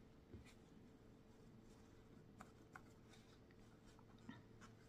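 Near silence: a few faint rustles and soft ticks of a paper towel being rubbed over a paintbrush to clean it, over a faint steady hum.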